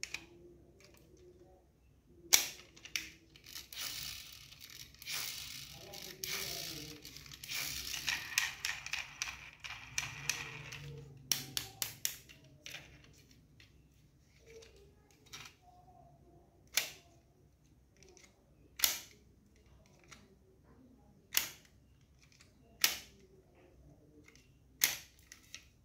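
Small diecast McLaren P1 model car being handled: a stretch of scratchy rubbing and rattling, then a series of sharp clicks a second or two apart as its doors are snapped open and shut.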